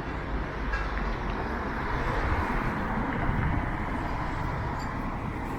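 Steady town-street noise with road traffic running past, an even rumble without distinct events.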